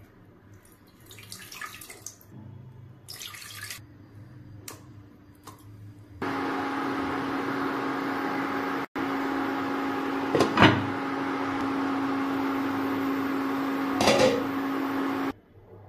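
Water poured and splashing into a cooking pot in short runs, then a steady hiss with a constant low hum as the pot of chicken and potatoes heats to a boil on an electric cooktop. Two short louder sounds break in about ten and fourteen seconds in.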